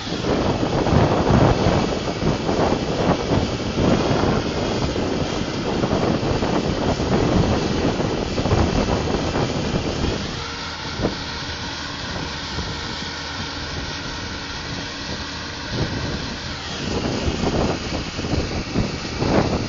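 Wind rushing and buffeting over the microphone of a handlebar-mounted phone on a moving bicycle, mixed with the drone of a farm tractor's engine ahead. About halfway through the buffeting eases for several seconds, leaving a smoother, steadier drone.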